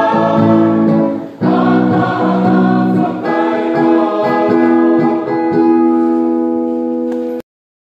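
Mixed choir of men and women singing a hymn in parts, ending on a long held chord that cuts off suddenly about seven seconds in.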